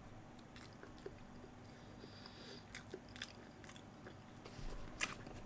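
A person chewing a mouthful of chicken burger close to the microphone: soft, scattered mouth clicks and smacks, a little busier in the second half, with a louder smack about five seconds in.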